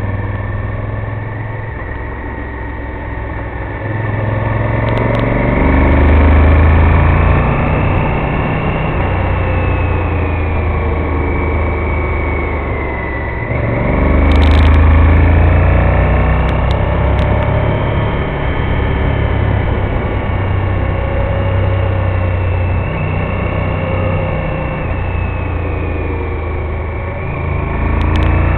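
Honda VTR1000F Firestorm's 90-degree V-twin engine running under way, its revs rising and falling with the throttle through the bends. It gets louder as the bike accelerates, about six seconds in, again around halfway, and near the end.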